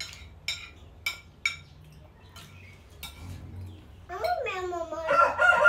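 Metal spoons clinking against ceramic plates, a few light clinks about half a second apart, then scattered softer taps. About four seconds in, a rooster starts crowing, one long call that runs past the end and is the loudest thing heard.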